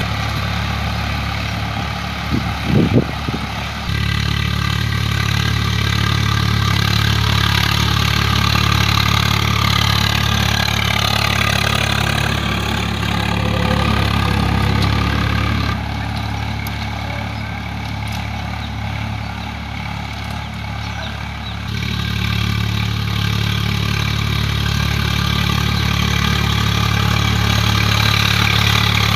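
Swaraj 744 FE tractor's three-cylinder diesel engine running steadily while driving a rotavator that churns through the soil. The engine note shifts abruptly a few times, and there is a short louder sound about three seconds in.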